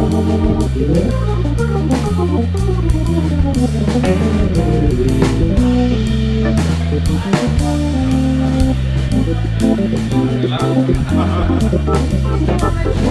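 Background music: an instrumental track with guitar and organ over a steady drum beat.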